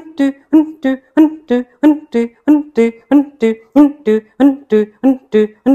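Kapalabhati breathing strokes: rapid, forceful nasal exhalations in a steady rhythm of about three a second, each with a short hum.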